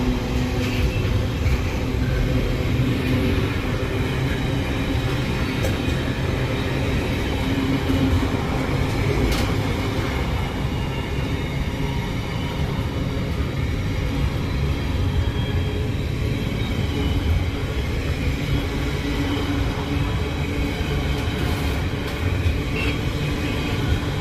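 Train at the station, running with a steady low rumble that holds at the same level throughout, with faint steady engine-like tones over it and a brief tick about nine seconds in.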